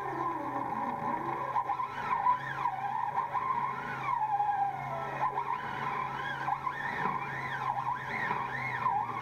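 Float reel whirring as a hooked fish strips line off it. Its pitch rises and falls with each surge, in quick repeated swoops toward the end.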